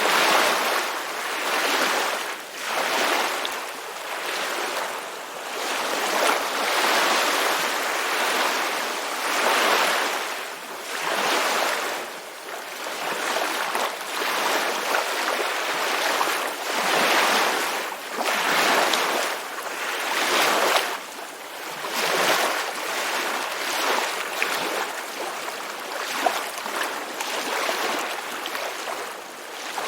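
Ocean surf: waves washing in and out, a hiss that swells and fades every second or two.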